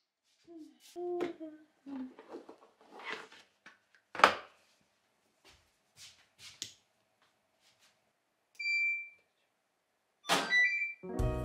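Clicks, taps and knocks of things being handled at home, the sharpest about four seconds in, then a single electronic beep from a household appliance lasting about half a second. A clatter with a second short beep follows near the end.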